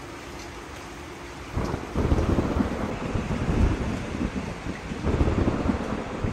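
Thunder rumbling, starting suddenly about a second and a half in and rolling on in loud low surges.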